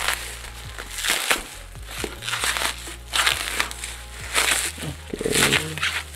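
Thick bubble wrap crinkling and rustling in a run of separate bursts as it is pulled open and unwrapped by hand.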